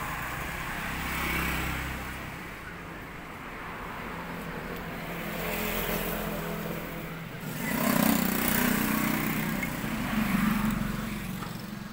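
Steady background noise of passing road traffic, with engine hum, swelling louder about eight seconds in as a vehicle goes by.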